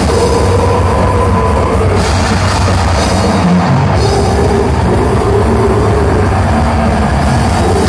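Death metal band playing live: heavily distorted electric guitars, bass guitar and drums, loud and continuous.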